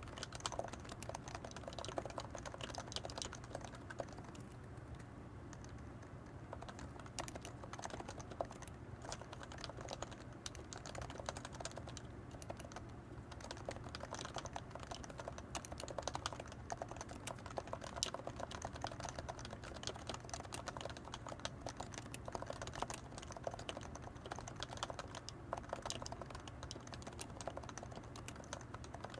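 Continuous typing on a Leopold FC660C keyboard with 45g Topre electrostatic-capacitive switches and blank PBT keycaps: a dense, irregular run of soft keystrokes from unlubricated sliders, a little sparser for a few seconds about 4 s in.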